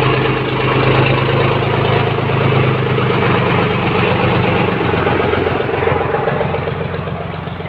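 Old farm tractor's diesel engine idling steadily; its note shifts slightly about five seconds in.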